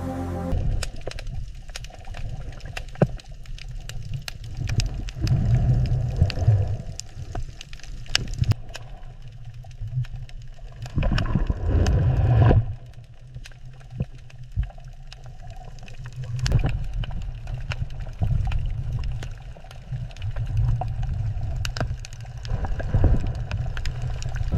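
Water ambience, with no music: a low rumble that swells and ebbs, scattered with many sharp clicks and crackles.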